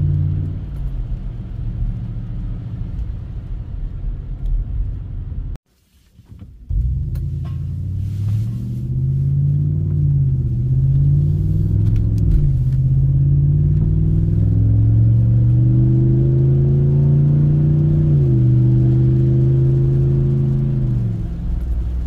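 Exhaust of a 2023 Ram 1500 pickup through its aftermarket MBRP muffler, heard from inside the cab while driving. The engine note rises in pitch as the truck accelerates, drops sharply at an upshift about three-quarters through, then falls away near the end. There is a short break in the sound about six seconds in.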